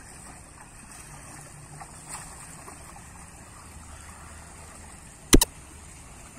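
Water running steadily down a shallow garden channel and cascade. About five seconds in comes a sharp double click, the mouse-click sound of an on-screen like-button animation.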